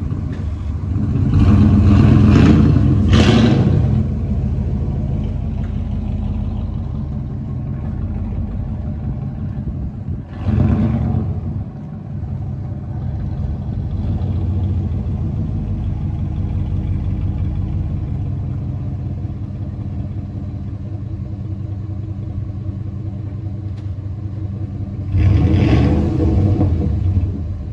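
2002 Dodge Ram 1500 pickup engine idling steadily, with three brief louder surges: about a second in, around ten seconds in, and near the end.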